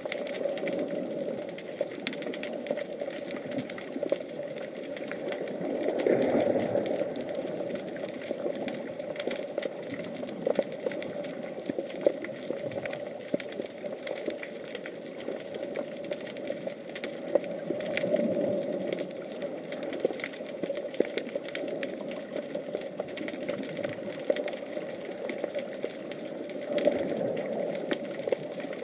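Underwater ambience picked up through an action camera's waterproof housing: a steady muffled rush with scattered crackling clicks. It swells louder three times, about six seconds in, around eighteen seconds in, and near the end.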